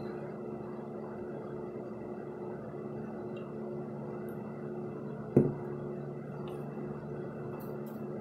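Steady background hum with a few fixed tones, and one short, sharp knock about five seconds in.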